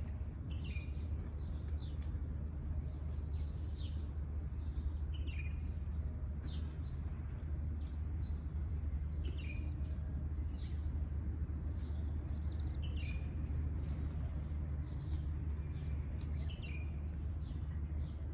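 Sparrows chirping: a steady run of short, high chirps, with a falling chirp that comes back every three to four seconds, over a continuous low rumble.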